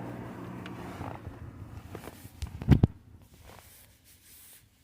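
Handling of a removed airbag control module and its replacement: a few clicks and knocks, with one loud thump about three seconds in. A steady low hum stops about a second in.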